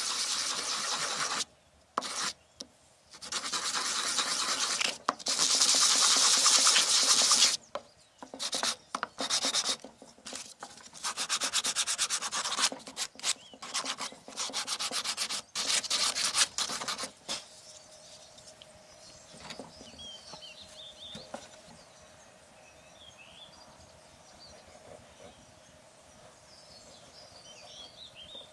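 Hand sanding a wooden board's edge with sandpaper, first on a wooden block and then folded in the hand, in scratchy back-and-forth runs broken by short pauses. The sanding stops about two-thirds of the way through, leaving quiet outdoor background with a few brief bird chirps.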